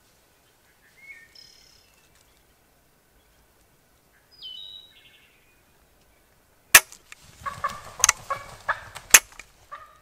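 Sharp metallic clicks and clacks from a cheap shotgun, three of them loudest, as it misfires and the action is worked, with short calls from a turkey and rustling in between. Songbirds chirp briefly before the clicks begin.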